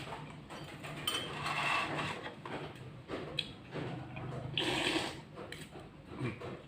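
Close-up eating sounds: chewing and mouth noises with irregular light clinks of cutlery on a plate.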